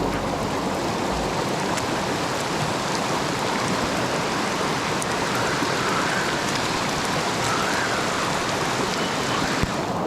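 Heavy rain in a downpour falling on and around a rain-swollen mountain brook, blended with the brook's rushing water: a steady, even hiss with no let-up.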